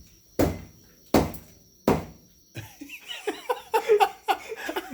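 A pestle pounding corn in a mortar: three heavy thuds about three-quarters of a second apart. The pounding stops about two seconds in, and voices start shortly after.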